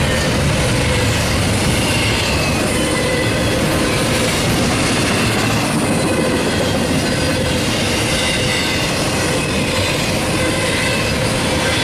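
Double-stack intermodal container cars rolling past close by: steel wheels on the rails make a steady, loud rolling noise, with thin high squealing tones from the wheels mixed in.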